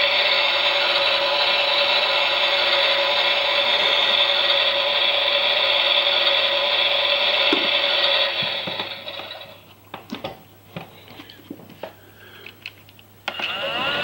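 Toy Miele Softtronic washing machine's small electric motor turning the drum, a steady whir with a high whine. About eight seconds in it winds down and stops, leaving only a few faint knocks and clicks from the toy being handled, until another steady machine sound cuts in abruptly near the end.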